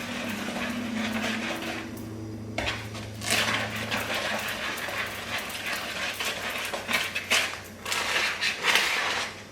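A spoon stirring muffin batter in a mixing bowl, scraping and clinking irregularly against the sides as wet and dry ingredients are combined.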